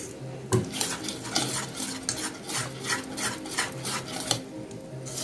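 A wire whisk beating thick gram-flour and semolina batter in a stainless steel bowl, its wires scraping and clinking against the metal side in quick, uneven strokes, about two to three a second.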